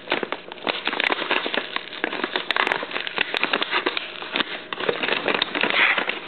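Tear strip being ripped along the edge of a mailer envelope: a continuous crackling rip of paper with many small clicks, going on throughout.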